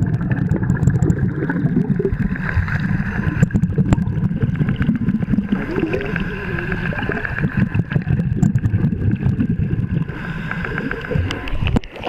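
Underwater rumbling and bubbling of scuba divers' exhaust bubbles and churned water, dense and crackling. It cuts off abruptly near the end as the sound returns to the surface.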